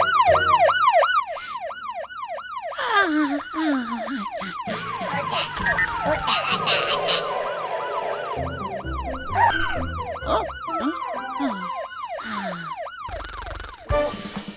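A rapid yelping siren sound effect, rising and falling about three times a second, that runs on and off through most of the stretch, with other cartoon sound effects and music mixed in.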